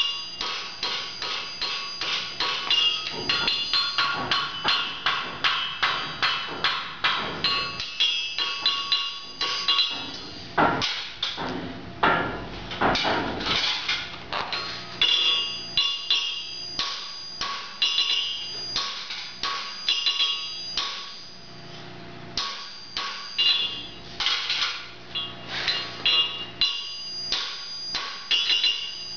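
Farrier's hammer striking a horseshoe held on the anvil horn to shape it. It gives runs of ringing metallic strikes, several a second, with a short lull about two-thirds of the way through.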